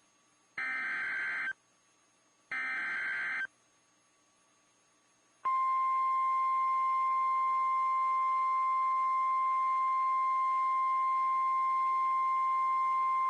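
Emergency Alert System weather warning opening: two bursts of about a second each of the SAME digital header's buzzy data tones, then a steady single-pitch 1050 Hz NOAA Weather Radio warning alarm tone begins about five seconds in.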